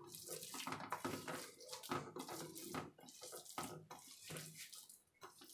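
A hand mixing a wet batter of grated bottle gourd and gram flour in a steel bowl: soft, irregular squelching strokes and scrapes against the metal.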